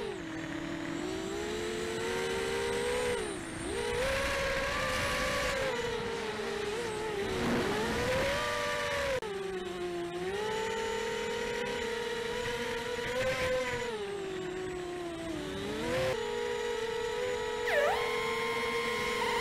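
Electric motors and propellers of an FPV racing quadcopter whining, the pitch sliding up and down with the throttle. The sound breaks off abruptly and resumes twice.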